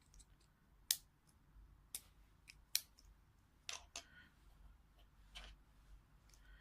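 Several faint, sharp clicks, spaced irregularly, from plastic collar buckles being handled, snapped together and released.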